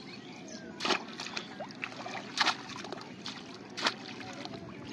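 Bamboo polo fish trap being plunged into shallow, weedy water, three sharp splashes about a second and a half apart.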